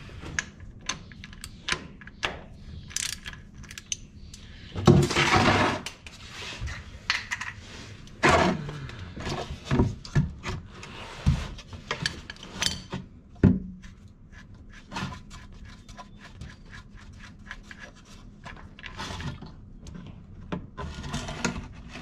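Hand work on a tractor's spin-on oil filter: a cup-type filter wrench being fitted and turned to loosen the filter, giving scattered metal clicks, scrapes and knocks, with louder scraping rushes about five and eight seconds in.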